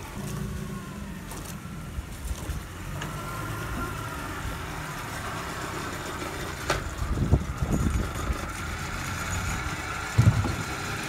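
Boat engine running steadily with a thin, high whine over a low hum, broken by a few dull low thumps about seven and ten seconds in.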